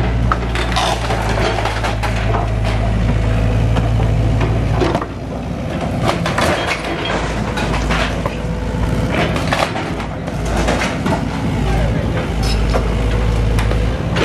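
SANY compact excavator's diesel engine running, with wooden beams cracking and rubble clattering as the building is torn down. The engine drops in level about five seconds in.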